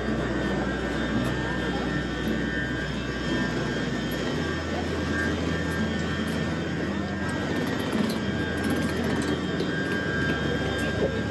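Running noise inside a moving electric commuter train carriage: a steady rumble and hiss, with a low motor hum that shifts pitch about four seconds in and again near ten seconds.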